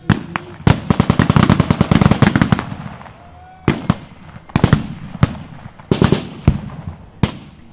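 Blank gunfire in a staged battle: a long burst of rapid shots of about two seconds, then scattered single shots, several close together.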